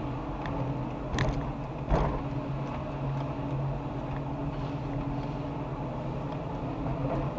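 Car engine running steadily at low speed as the car rolls along, heard from inside the cabin, with two short knocks about one and two seconds in, the second louder.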